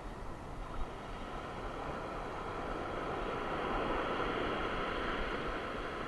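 Sea surf washing up the beach: a steady rushing hiss that builds gradually and is loudest a little past the middle.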